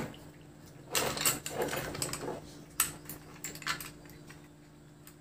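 Small metal clicks and scrapes of a screwdriver and fingers working the bolt and pin on the steel hanging bracket of a digital hanging scale, busiest in the first half, over a low steady hum.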